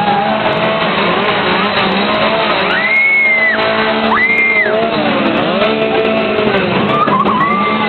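Loud music with a steady droning din, over which people in the crowd yell, with two high-pitched screams near the middle.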